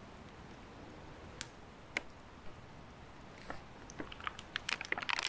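Plastic-and-cardboard packaging of a miniature rum gift box being handled: a couple of single clicks, then a quick run of crackling clicks near the end as a miniature bottle is worked out of the box.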